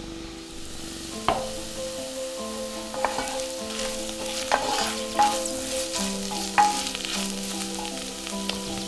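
Food frying and sizzling in a pot while a spoon stirs it, knocking against the pot about five times.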